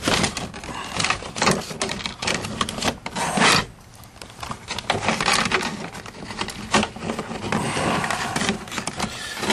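Plastic interior door panel of a 2002 Camaro being worked loose and manoeuvred off the door: irregular clicks, scrapes and rattles, with the loudest scrape about three and a half seconds in.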